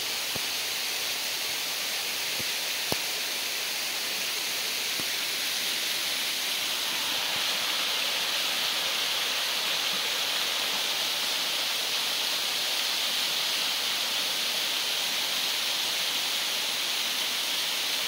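Waterfall pouring down a rock face into a pool: a steady rushing hiss of falling water that grows a little louder partway through.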